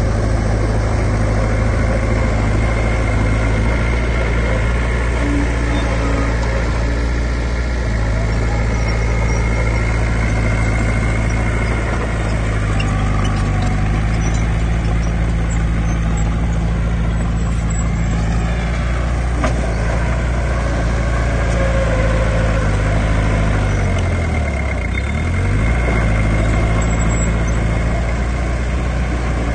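Heavy diesel engines of earthmoving machinery running steadily. The engine note shifts in pitch now and then, dipping and rising again about 25 seconds in.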